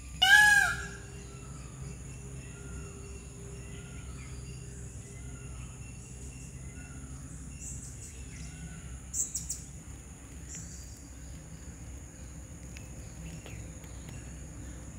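A chicken calls loudly once just after the start, then fainter short calls repeat about once a second. A steady high insect drone runs underneath, and a short sharp sound comes about nine seconds in.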